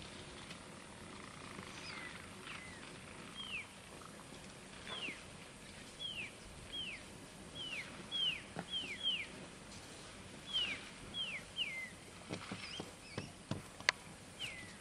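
A bird calling with short whistles that each slide downward, repeated at uneven gaps about a dozen times. A few sharp snaps come near the end, the last of them the loudest sound.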